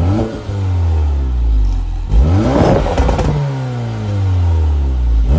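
Porsche Macan T's turbocharged four-cylinder engine being revved through its black sport exhaust. A rev at the very start drops back to idle, a longer rev about two seconds in rises and falls, and another rev begins near the end.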